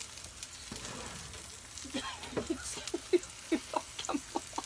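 Zucchini and onion sizzling in two frying pans. About halfway through, a quick run of short squeaky chirps, each dropping in pitch, comes in over the sizzle.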